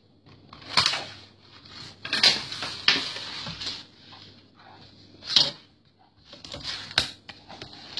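Handling noises as a sewing ruler is laid and shifted over quilted fabric on a cutting mat: several knocks and rustles, the sharpest a click about seven seconds in, along with fabric being smoothed by hand.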